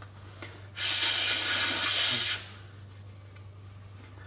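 One hissing blast of air, about a second and a half long and starting about a second in, blown into a smartphone to clear out water left in it after being frozen in ice.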